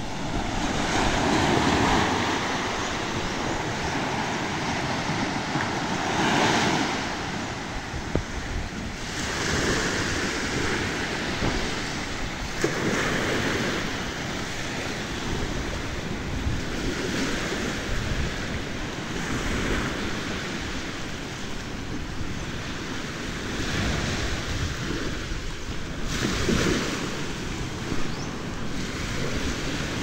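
Small waves washing onto a sandy shore, swelling and easing every few seconds, with wind buffeting the microphone.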